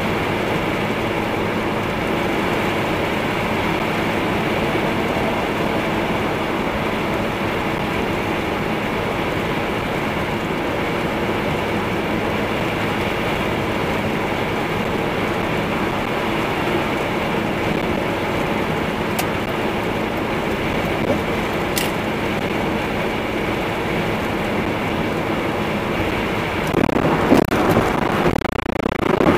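Steady engine drone and road noise of a 1996 Mazda Miata driving at speed, heard inside the cabin. Two faint clicks come in the second half, and a louder rush of road noise swells near the end.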